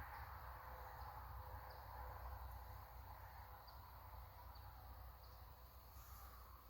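Near silence: faint outdoor ambience with a faint insect chirp about once a second over a low rumble.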